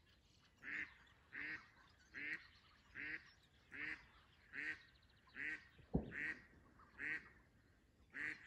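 A live decoy hen duck quacking in a steady series, a little more than one call a second. She is calling to draw in drakes. A single sharp knock comes about six seconds in.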